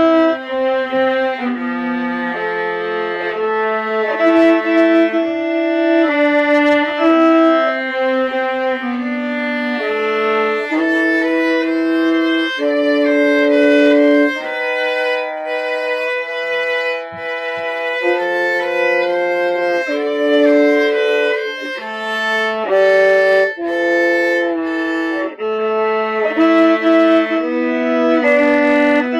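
Two violas playing a duet in two-part harmony, with held bowed notes that change every second or so.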